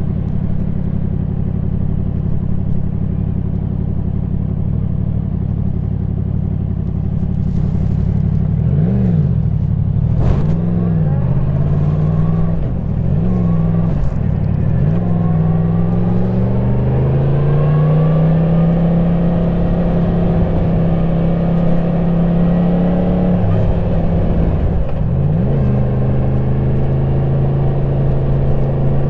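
Yamaha MT-10 SP's crossplane inline-four engine running through its stock exhaust while riding. It holds a steady pitch at first. About nine seconds in, the revs rise and fall several times in quick succession. It then climbs to a higher steady pitch, dips briefly twice, and settles again.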